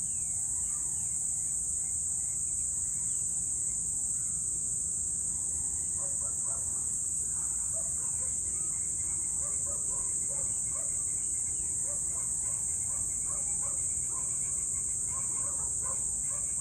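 A steady, high-pitched drone of insects, like a cricket chorus, with short bird chirps scattered over it from about six seconds in and a low rumble underneath.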